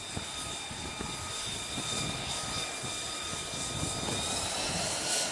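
F-35C's Pratt & Whitney F135 jet engine running at low power as the fighter taxis: a steady high whine over a low rumble, the whine rising slightly in pitch near the end.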